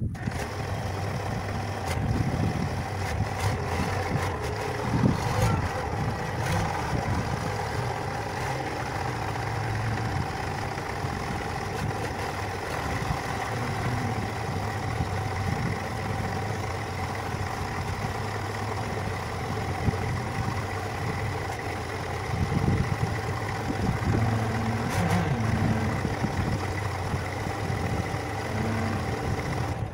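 Wheel loader's engine running steadily while its raised bucket is worked, with a few brief knocks over it.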